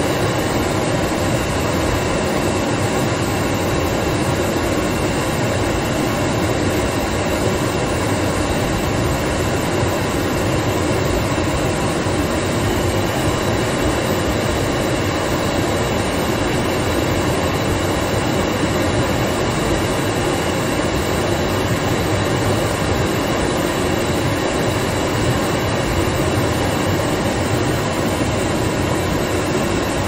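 Car heater blower fan blowing air out of the vents: a steady, unchanging rush of air.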